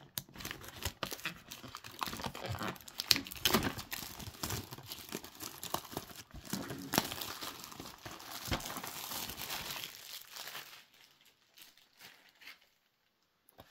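Wrapping being torn and crinkled off a trading-card booster box: a dense run of crackling and tearing that thins out to a few faint handling noises about ten seconds in.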